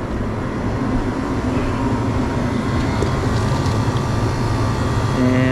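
Steady hum and fan rush of a refrigeration condensing unit running.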